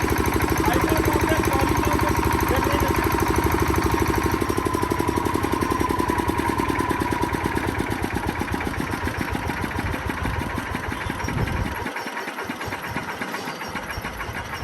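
Handle-start diesel generator set's engine running with an even, rapid firing beat, then slowing, its beats spreading out, and stopping about twelve seconds in: the set is being shut down.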